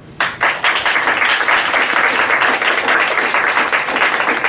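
Audience applauding: a loud burst of clapping that starts suddenly and keeps up steadily.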